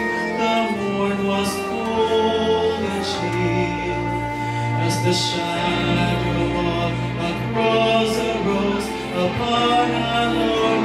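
Choir singing a slow hymn, with a male soloist singing into a microphone amplified over loudspeakers; long held notes over low sustained bass notes.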